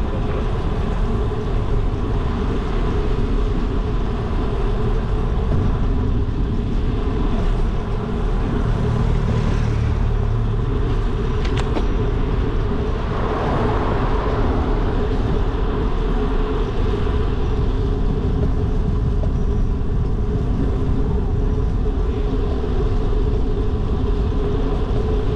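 Steady rumble of wind on the microphone and tyre-on-road noise from a bicycle riding along a paved avenue, with a brief swell a little past the middle.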